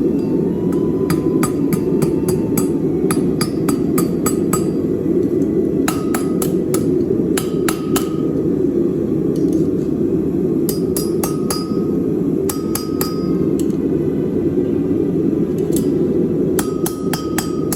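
Hand hammer striking on a Chinese-style turtle anvil in five bursts of quick blows, each blow leaving a short ring, over a steady low rushing noise.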